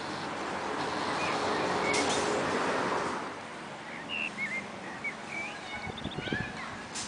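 Small birds chirping, with a broad rushing noise that swells and then fades about three seconds in, and a few low thumps near the end.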